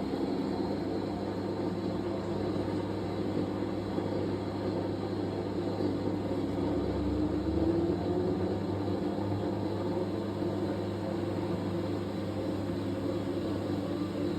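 Fisher & Paykel MW059NZ washing machine running during a towels wash: a steady mechanical hum, its pitch drifting up slightly about halfway through.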